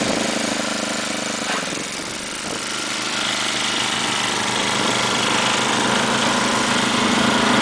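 Snowblower engine running steadily, dipping slightly about two seconds in and then growing a little louder.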